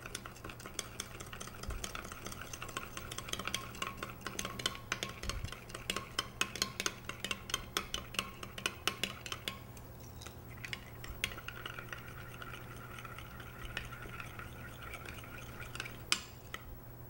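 A metal spoon stirring and scraping in a small glass bowl, clicking quickly against the glass as sour cream and sugar are mixed until the sugar dissolves. The clicks come thick for the first ten seconds or so, then thin out, with one sharper clink near the end.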